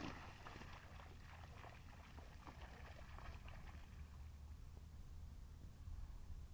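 Dogs splashing through a shallow puddle, the splashing tapering off after about three seconds as they stop and stand in the water.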